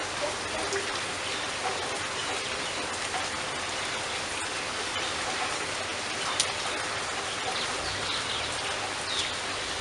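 Steady rain falling, with individual drops pattering and one sharper, louder drip about six and a half seconds in. Faint bird chirps come through the rain now and then.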